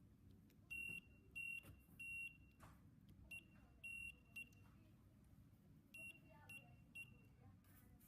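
Electric buzzer keyed by a hand switch, sending Morse code: a high, steady beep in long and short pulses. First come three long beeps, then short-long-short, then three short beeps near the end.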